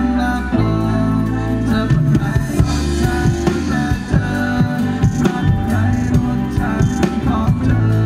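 Live rock band playing at full volume: electric guitars and bass guitar holding sustained chords over a drum kit, with steady, frequent drum hits.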